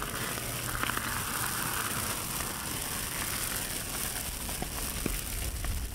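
Pile of brush and scrap burning in open flame, a steady crackling hiss with a few sharper pops near the end.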